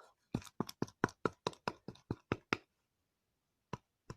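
A mixing utensil tapping against a bowl of slime: a quick run of about ten sharp taps, a little over four a second, then a pause and two more taps near the end.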